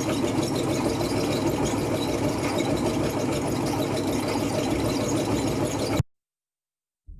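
A motor running steadily, cutting off abruptly about six seconds in.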